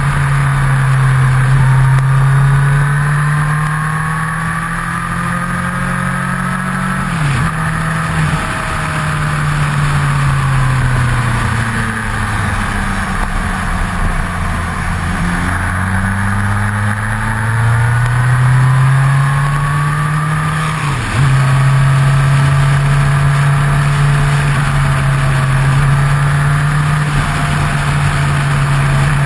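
Motorcycle engine running under way, heard from the bike's fairing with steady wind rush. The engine note dips sharply twice, about seven and twenty-one seconds in, falls away in between as the bike slows, then climbs again and holds steady.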